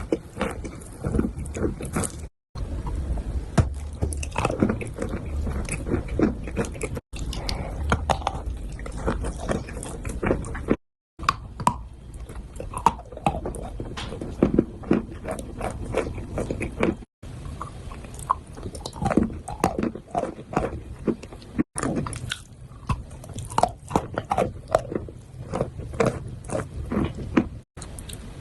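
A person biting and chewing chalk close to the microphone: dense, irregular crunching and crackling, broken by a few brief silent gaps.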